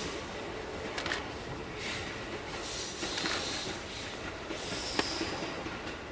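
Electric train running away along the track, its running noise a steady hiss with a few sharp clicks, the loudest about five seconds in.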